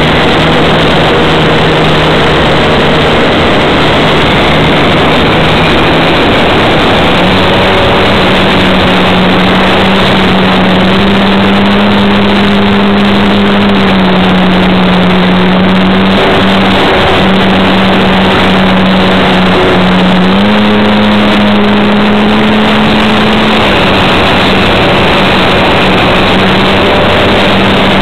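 RC model Cessna's motor and propeller running in flight, heard through the onboard camera's microphone over heavy wind rush. The motor's pitch steps up and back down twice with throttle changes.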